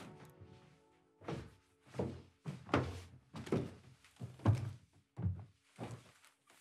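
Footsteps coming heavily down a wooden staircase: about eight thuds, one roughly every three-quarters of a second. They follow a short thump as the music cuts off.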